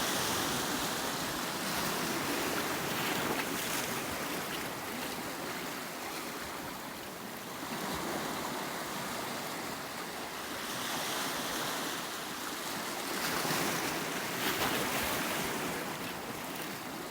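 Sea waves breaking and washing on the shore, a steady rush that swells and eases every few seconds.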